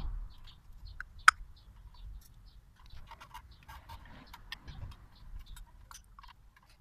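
Kawasaki motorcycle front brake caliper and brake pads being handled and fitted by hand: light clicks and rattles of metal and friction parts, with one sharp click about a second in.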